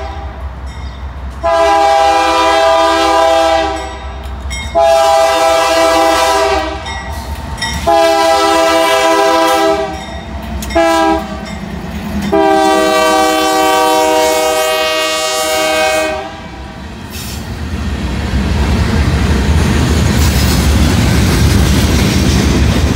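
Freight diesel locomotive's multi-chime air horn blowing a grade-crossing signal as it passes: long blasts with one short blast near the middle, the last long blast held longest. After about 17 seconds the horn stops and the freight cars roll by with a steady rumble of wheels on rail that grows louder.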